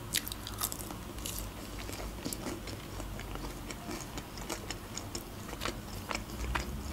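Close-up mouth sounds of someone chewing a sauce-dipped fried potato wedge: an irregular run of small, sharp clicks and crisp crackles.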